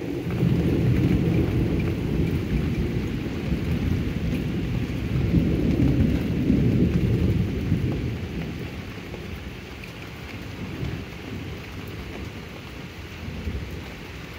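A long peal of thunder that breaks suddenly, rumbles loudly in swells for about eight seconds and then slowly dies away, over steady rain falling on pavement.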